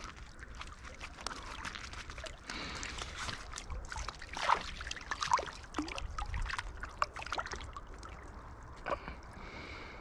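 Small irregular splashes and trickling as hands move a trout about in a landing net held in the river, over the faint steady wash of the current.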